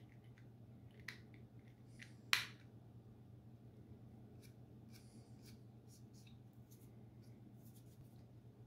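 Quiet room with a low steady hum and a scatter of small clicks and taps from hands handling a plastic model locomotive. The sharpest click comes a little over two seconds in.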